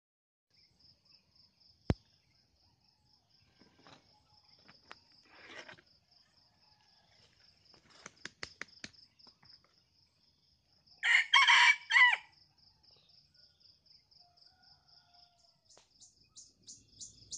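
A red junglefowl crowing once about eleven seconds in: a short crow of a few quick syllables. A steady high pulsing chirp runs in the background, and there is a sharp click near two seconds in.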